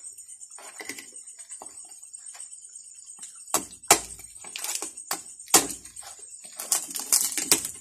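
Table knife sawing through the crisp skin of roast pork (lechon) on a plate: a few faint clicks at first, then loud crackling crunches with a couple of sharp knocks from about three and a half seconds in, thickest near the end.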